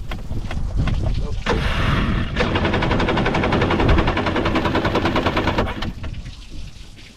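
Yamaha Wave Blaster 760 two-stroke engine cranking over on its electric starter, a fast, even pulsing for about five seconds that stops near the end without the engine catching.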